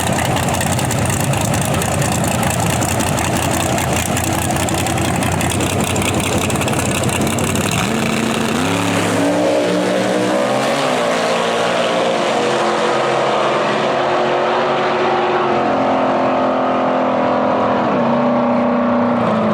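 Drag race car engines at full throttle for about eight seconds. Then they drop to lower revs, with the pitch rising and falling as they are revved.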